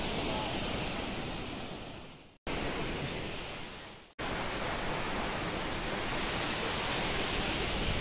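Steady outdoor rushing noise of wind and distant falling water from a high waterfall across a gorge. It fades away twice, about two and a half and about four seconds in, each time cutting straight back in at full level.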